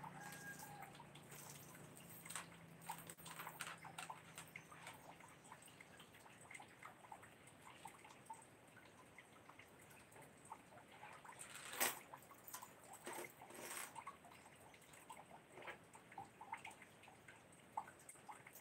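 Faint, irregular water drips and small clicks, with a low hum that fades away in the first few seconds and one sharper click about twelve seconds in.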